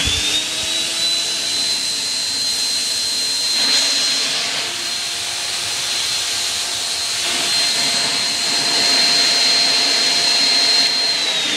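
Fruit juicer's brushed electric motor running steadily at full speed, locked on through a drill's trigger speed switch, with a high steady whine over running noise. Near the end it is switched off and the whine falls away as the motor winds down.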